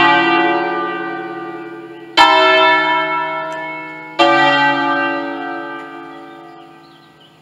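Church bells from a five-bell ring tuned in D, cast by Pruneri in 1953 and rung electrically, sounding the last strokes of a peal. Two strokes about two seconds apart, each left to ring on, and the sound dies away near the end as the ringing stops.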